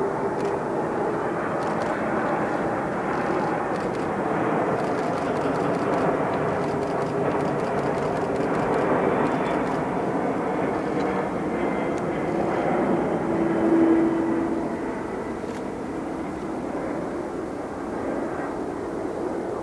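Boeing 737-800's twin CFM56-7B turbofan engines at climb thrust as the airliner climbs away after takeoff: a steady rushing jet noise. It is loudest for a moment about two-thirds of the way in, then eases a little.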